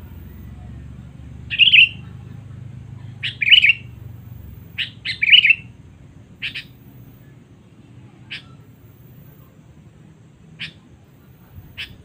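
Sooty-headed bulbul (kutilang) calling: three loud warbled phrases about two seconds apart, then single short sharp chirps every second or two.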